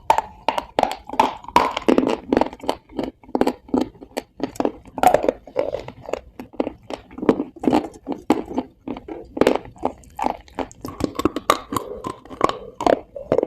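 Close-miked loud, dry crunching of a person chewing a hard, brittle material such as the baked clay or chalk eaten in ASMR videos: a steady run of sharp crunches, several a second.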